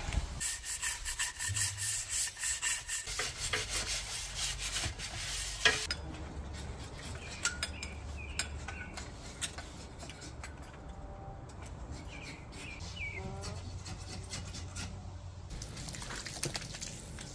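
A brush scrubbing a barbecue grill grate in a tub of soaking water, with rapid back-and-forth rasping strokes for about the first six seconds. Then it goes quieter, with a few short bird chirps, and the scrubbing picks up again near the end.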